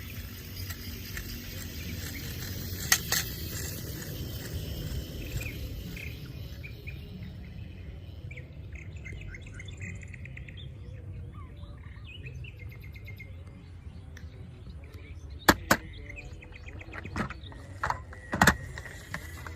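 Birds chirping over a low steady background rumble, with a few sharp knocks: one about three seconds in, a close pair about fifteen seconds in, and another near the end.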